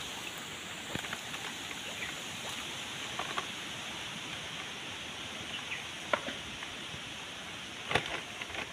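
Quiet water sounds of a cast net being handled and picked over in shallow water: light splashing and dripping over a steady hiss, with a few short sharp clicks, the loudest near the end.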